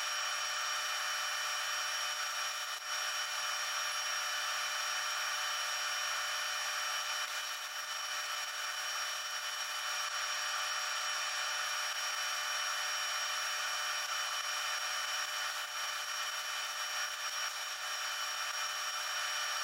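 Steady hiss with a constant high-pitched electrical whine, unchanging throughout.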